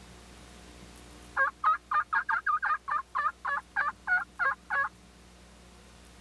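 A series of about fourteen turkey yelps, evenly spaced at roughly four a second, each note breaking downward in pitch. The yelps are loud over a faint steady hiss.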